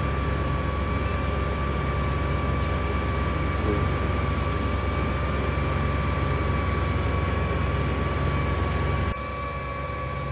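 Steady low mechanical hum with a thin, steady high whine over it. The low hum drops away suddenly about nine seconds in, while the whine carries on.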